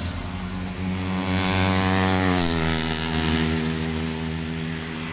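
A motorcycle riding past: its engine note drops in pitch about two seconds in as it goes by, then runs on steadily.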